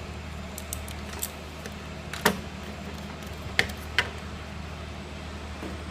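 Scattered sharp clicks and taps of small parts and the plastic case being handled while a mechanical keyboard is taken apart, its screws removed and the case opened. A few light clicks come first, then one louder click, then two more about half a second apart, over a steady low hum.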